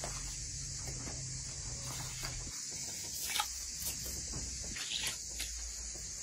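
A hand working a runny egg mixture in a large metal basin: a few short, wet clicks and splashes between about two and five and a half seconds in, the sharpest about three and a half seconds in, over a steady hiss.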